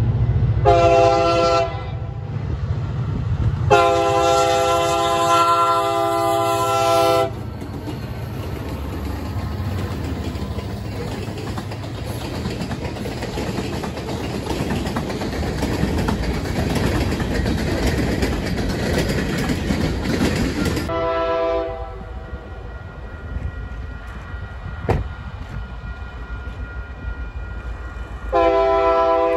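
Union Pacific EMD SD40 diesel locomotives sound a multi-chime air horn: a short blast, then a long one of about three seconds, as they approach a grade crossing. Then the freight train passes close with a steady rumble and clatter of hopper cars on the rails. After a cut, the horn sounds again briefly from farther off and once more near the end.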